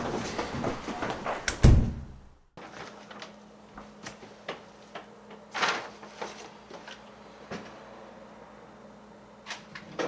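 A door slams shut with a heavy thump about two seconds in, and the busy noise before it cuts off at once. A quiet room follows, with a faint steady hum and scattered small knocks and clicks.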